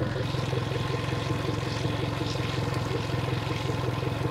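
Suzuki four-stroke outboard idling steadily out of the water on a flushing hose hookup, with water being run through its crudded-up cooling jacket.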